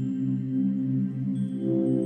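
Soft ambient background music: long held low notes with faint high notes above, the chord changing about three quarters of the way through.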